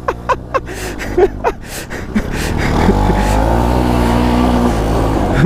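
Motorcycle engine running and then being revved, getting louder and rising in pitch about halfway through as the bike accelerates through mud, with scattered knocks and clicks before it.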